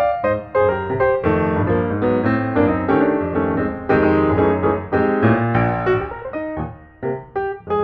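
Background piano music: a steady run of notes and chords that thins out briefly near the end.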